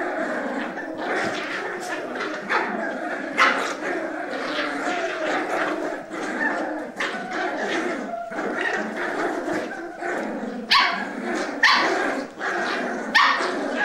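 Several Cavalier King Charles Spaniel puppies growling without let-up as they tug and wrestle over a sock in a play fight, with a few sharp barks breaking in, one about three seconds in and three close together near the end.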